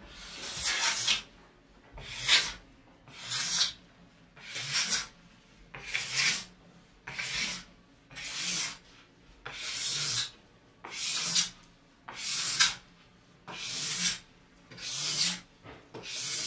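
Plastic scraper drawn in long strokes along a waxed ski-jumping ski's base, scraping off hardened wax: a rasping stroke about every 1.2 seconds, each swelling and then cutting off.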